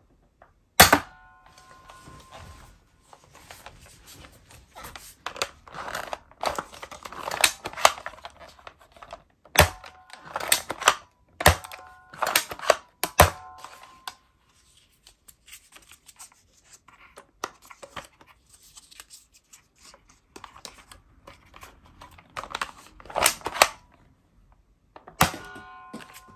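Plastic toy dart blaster being handled, pumped and loaded: bunches of plastic clicks and clacks with a few sharp snaps, in irregular spells with quieter gaps between.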